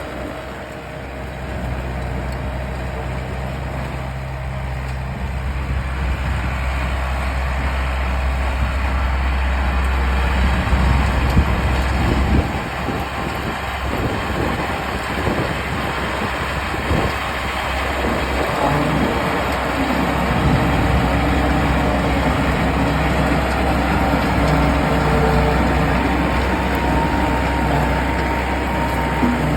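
Engine of a rice combine harvester converted to carry a tilling rig, running steadily with a deep hum. About twelve seconds in the deep hum drops away and a rougher, uneven working sound follows.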